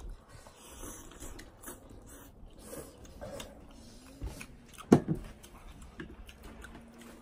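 A person eating noodles: faint scattered mouth and handling sounds, with a sharp knock about five seconds in.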